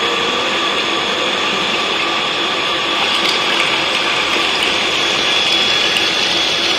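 A 0.5 HP electric water pump runs steadily, pushing water through the PVC pipeline, with a steady high whine. Water runs from a tap opened to simulate a leak.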